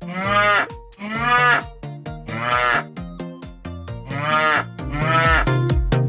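Electronic baby toy playing a recorded cow moo five times, each call rising and falling, over a children's tune with a steady beat.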